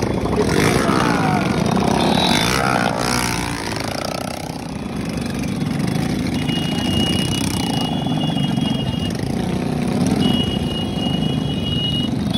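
Motorcycle engine running steadily at low speed, a dense rumble throughout. A thin high tone is held for a few seconds twice in the second half.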